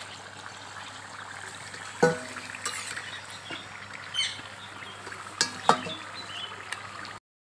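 Hot oil bubbling with a steady hiss as fried gujiya are lifted out with a steel slotted spoon, oil trickling back into the pan. A few light metal clinks ring out, about two seconds in and twice more a little past the middle.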